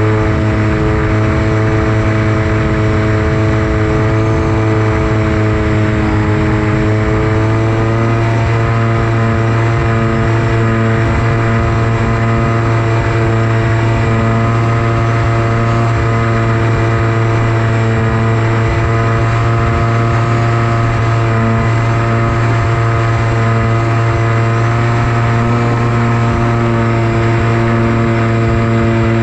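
Electric motor and propeller of a Versa flying wing running at a steady cruise throttle, a constant drone with a hiss of air. Its pitch dips slightly about six seconds in, then holds steady.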